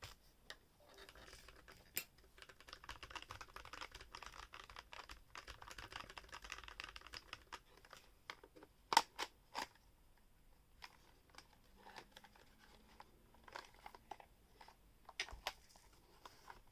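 Typing on a Quefrency split mechanical keyboard with lubed Gazzew Boba U4T tactile switches, PBT Cherry-profile keycaps and a 3D-printed case. A fast run of key clicks lasts several seconds, then a few louder single keystrokes follow, then slower, scattered keypresses.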